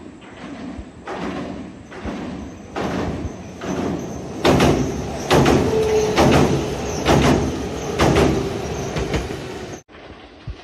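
Nagano Electric Railway express train running past, its wheels clacking over rail joints in paired beats over a steady rumble, the clacks getting much louder about halfway through. The sound stops abruptly near the end.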